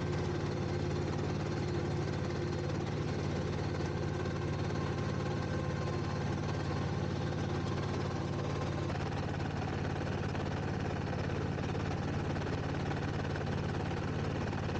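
Small farm tractor's engine running steadily while the tractor drives along a field row, a constant low hum at an even level.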